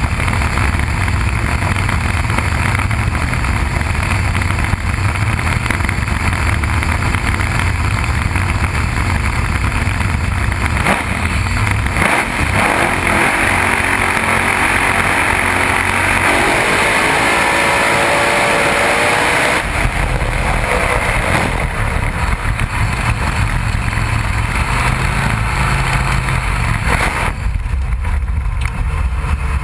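A drag-racing funny car's supercharged V8 engine running, heard from inside the cockpit. From about twelve seconds in, the deep rumble drops out for roughly eight seconds while a harsher rushing sound with rising tones takes over, then the rumble returns.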